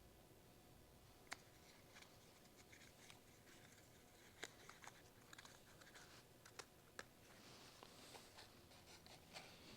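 Faint handling noise: scattered light clicks and scraping as small spark-plug thread adapters from a tire pump kit are picked up and sorted, with the sharpest clicks about a second in, around four and a half seconds and around seven seconds.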